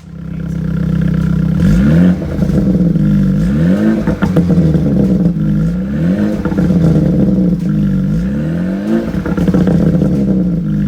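Car engine revving: it holds a steady pitch and blips up and back down about four times, a couple of seconds apart.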